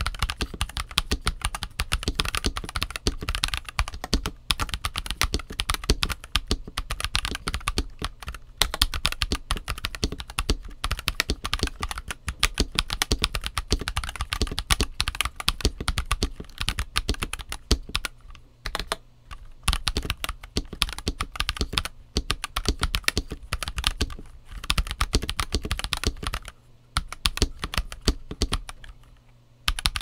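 Fast, continuous typing on a NuPhy Halo75 75% mechanical keyboard with Rose Glacier switches and PBT double-shot keycaps, run stock with stabilizers that still need tuning. The keystrokes come in a dense stream, with a few brief pauses in the second half.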